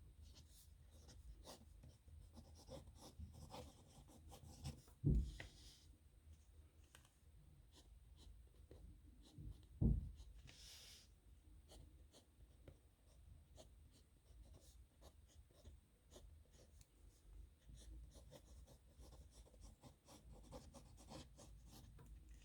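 Pen nib scratching across paper in quick strokes, signing a signature. Two dull thumps stand out, about five and ten seconds in.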